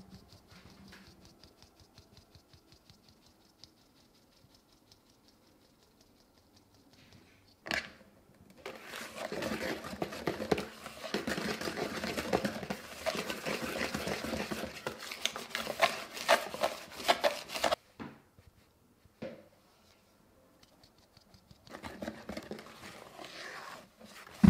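Wire balloon whisk working sifted flour into a thick egg-yolk, sugar and oil batter in a plastic bowl, its wires scraping and rattling against the bowl in a fast run of clicks. It starts about eight seconds in, stops for a few seconds, and starts again briefly near the end.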